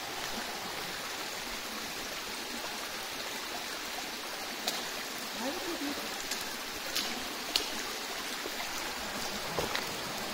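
Steady rush of a mountain creek running beside the trail, with a few sharp crunching footsteps on gravel and stone from about halfway through.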